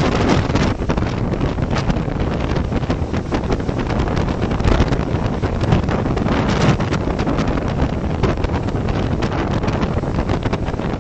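Strong wind blasting the microphone: a loud, continuous rumble with rapid crackling gusts.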